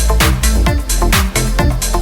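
Electronic dance music with a steady four-on-the-floor beat and heavy bass.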